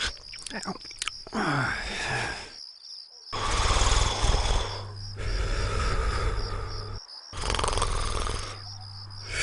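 Cartoon snoring sound effect for an animated TV-channel logo character: long, rasping snores repeated about every one and a half to two seconds, with short breaks between them, over a steady low hum.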